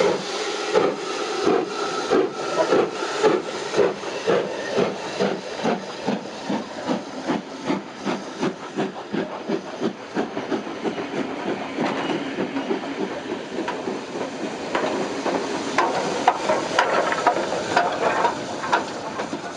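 Steam-hauled train of Mk1 coaches passing close by with a steady rhythm of beats and wheel clatter, and steam hissing as the second tank locomotive goes by near the end.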